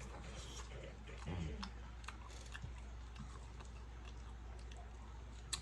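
A person chewing fries close to the microphone: irregular small mouth clicks and smacks, with a sharper click near the end.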